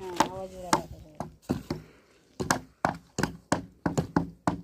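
A series of sharp knocks or chopping strikes, coming faster and more evenly in the second half at about four a second, after a brief voice at the start.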